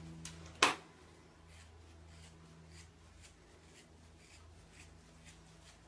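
Hand-stripping an Australian terrier's head coat: a string of faint short rasps as tufts of hair are pulled out, with one sharp click about half a second in.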